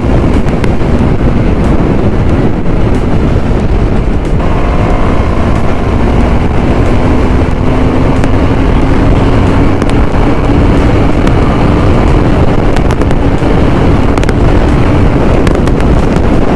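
Single-cylinder KTM Duke motorcycle ridden at speed under heavy wind noise on the microphone. Its engine note climbs slowly from about four seconds in.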